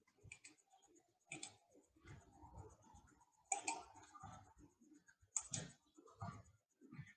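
Faint, irregular clicks and taps of a computer mouse and keyboard being worked.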